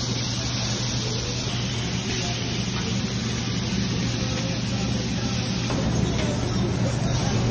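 Meat sizzling on a hot commercial flat-top griddle and charbroiler: a steady hiss over a constant low mechanical hum.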